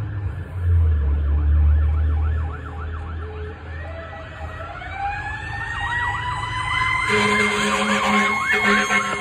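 Fire engine approaching with its sirens on: a fast yelping siren, joined about three and a half seconds in by a second siren slowly winding up in pitch. Horn blasts sound over the sirens near the end, and a loud low rumble fills the first couple of seconds.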